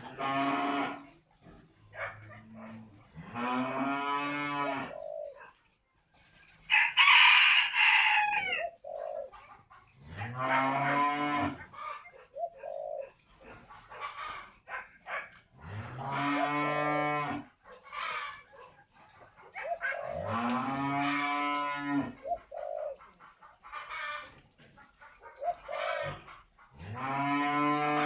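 Cattle mooing, six long, low calls a few seconds apart. Short spotted dove coos come between the moos, and a rooster crows once about seven seconds in, the loudest sound.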